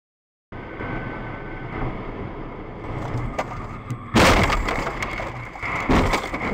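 Steady tyre and road noise of a car on a wet highway, picked up by its dashcam, broken by two loud crashing impacts about four and six seconds in.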